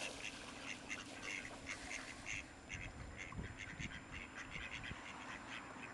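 Mallard ducks quacking faintly, many short calls in quick succession.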